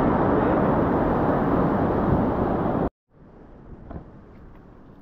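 Wind buffeting the microphone, with small waves washing in the shallows, cutting off abruptly about three seconds in. A much quieter outdoor background follows, with a single faint tap.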